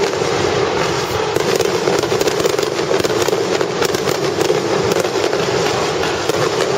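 Aerial fireworks bursting, with a dense, continuous crackle of many small cracks in rapid succession.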